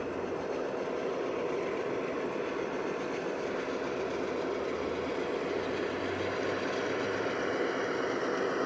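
G scale model diesel locomotives of a long freight train, the rear helper units, rolling past on track: a steady running sound with a low hum, growing slightly louder near the end.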